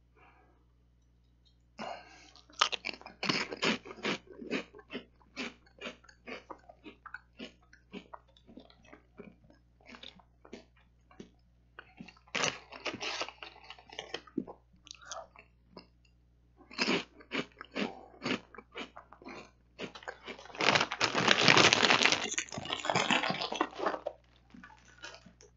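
Close-miked chewing and crunching of puffy layered potato chips, in spurts of sharp crackly crunches, with a louder, denser stretch of noise near the end.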